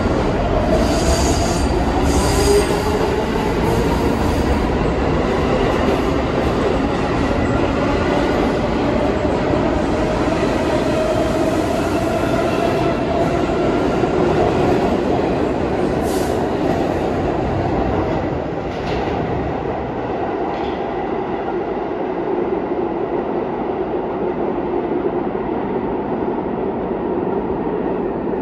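New York City subway train running in the tunnel, its motors whining in a pitch that rises as it picks up speed and then holds steady. A high wheel squeal comes in the first few seconds.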